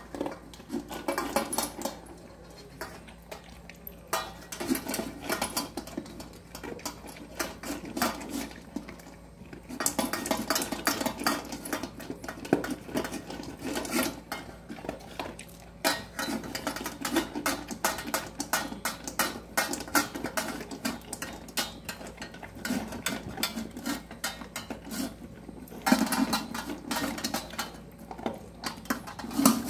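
A red-nose pit bull eating whole raw fish from a stainless steel bowl: wet crunching and chewing, with the steel bowl and the dog's chain collar clinking and clattering. It comes in bursts with short lulls.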